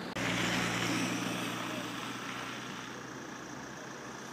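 A vehicle engine idling steadily, with a hiss over it that slowly fades.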